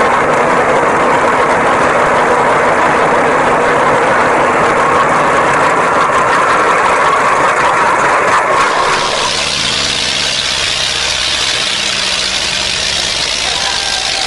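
New Holland 3630 tractor's diesel engine running hard while pulling a heavily loaded grain trailer, loud enough to lift the front wheels. About nine seconds in, the sound changes abruptly to a brighter, hissier engine noise.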